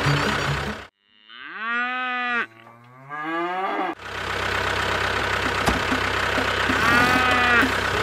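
A cow mooing twice, the first call rising then falling and the second lower, dubbed in as a sound effect. A steady engine sound then runs under music.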